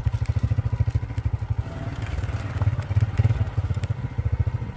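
Motorcycle engine running under way on a rough dirt track, a fast, steady low putter that swells a little about three seconds in.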